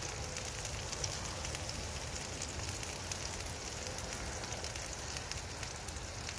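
A pound-and-a-half ground-beef patty sizzling on a hot flat-top griddle: a steady hiss with scattered small pops of spattering fat.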